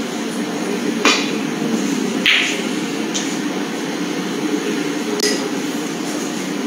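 Snooker cue tip striking the cue ball with a sharp click about a second in, then a second knock of balls meeting just over a second later, over a steady hum of the hall.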